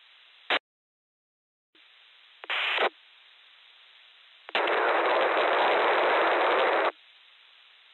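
Amateur radio repeater audio: faint steady hiss, a sharp short crack, a second of dead silence, then bursts of radio static, a brief one and then a loud one lasting about two and a half seconds.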